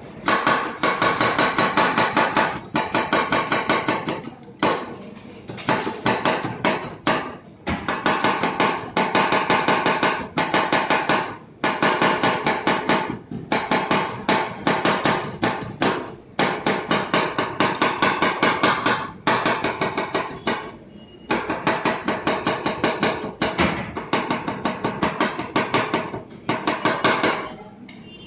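Two steel spatulas rapidly chopping Oreo cookies against a stainless-steel cold plate for rolled ice cream: quick metallic clacking, several strikes a second, in runs of a few seconds with short pauses between.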